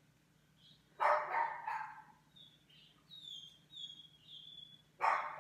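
A dog barking in the house: a quick run of three barks about a second in and another near the end, with short high squeaks in between.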